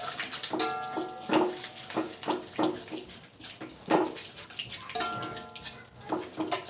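Eggs frying in oil in a pan, with a spatula repeatedly scraping and knocking against the pan a few times a second. A brief high-pitched sound with several tones rises over it twice, near the start and about five seconds in.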